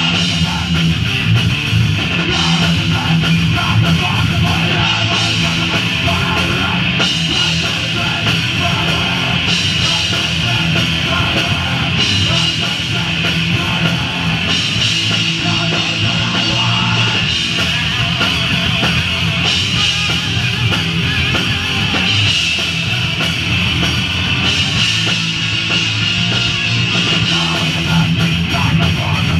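Live thrash/grind punk band playing loud and fast: distorted electric guitar and bass over a drum kit, as one continuous dense wall of sound.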